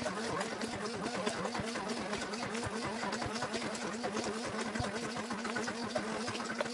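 Moulinex immersion (stick) blender running steadily in a tub of half-frozen caramel ice cream. Its motor hum wavers slightly in pitch as the blade churns through the thick mixture, beating it smooth and creamy.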